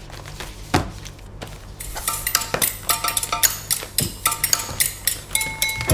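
Busy, irregular clinking and clattering of small hard objects, like dishes and cutlery, growing denser about two seconds in, over a low steady hum.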